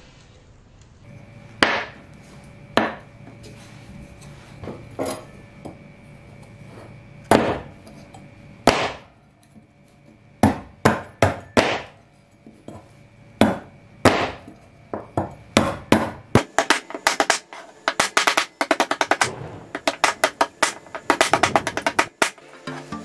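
The restored cleaver-axe's steel blade chopping into a wooden stick on a log round: sharp chopping knocks, a few spaced-out strikes at first, then quick repeated strikes several a second in the second half, over background music.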